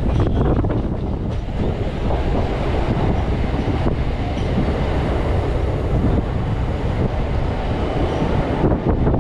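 Electric multiple unit (EMU) local train running along the track, heard from its open doorway: a steady rumble with the wheels clattering over the rails and wind rushing past the microphone.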